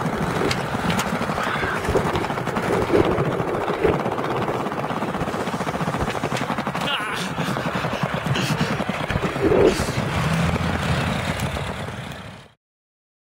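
Skateboard wheels rolling over tiled plaza paving, a continuous rattling rumble broken by sharp knocks of the board's pops and landings and a scraping grind on a concrete ledge. The sound cuts off suddenly about 12 seconds in.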